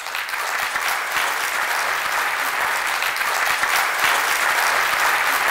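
Audience applauding: many people clapping steadily in a lecture hall.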